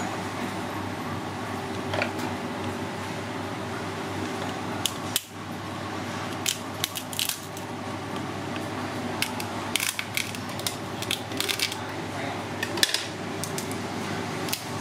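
Kitchen scissors snipping through cooked crab shell, with shell cracking: a run of sharp, irregular clicks that starts about five seconds in, over a steady background hum.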